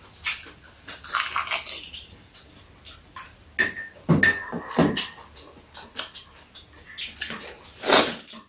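Metal spoons clinking and scraping against small bowls during a meal: a run of short knocks and scrapes, with two ringing clinks around the middle.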